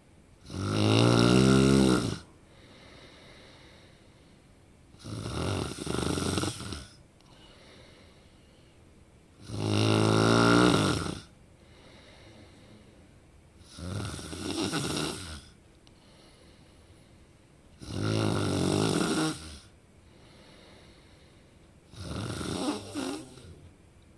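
A person snoring: six snores about four seconds apart, each a throaty, pitched drone lasting one and a half to two seconds. Louder snores alternate with softer ones that come in two parts.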